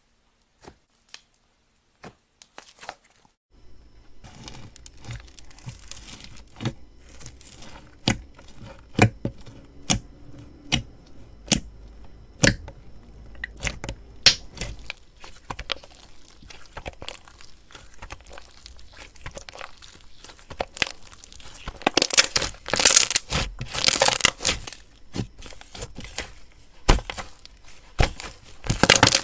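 Crunchy slime being squeezed and pressed by hand, giving off many sharp crackles and pops. The first few seconds hold only scattered clicks, then the crackling comes thick and fast, loudest in dense stretches about three-quarters of the way through and again near the end.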